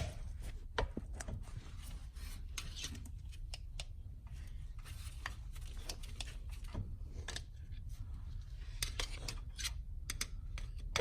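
Flathead screwdriver scraping and picking leftover bread out of a Mazda rotary engine's pilot bearing bore: faint, irregular small scrapes and clicks of metal on metal. It opens with one sharp click.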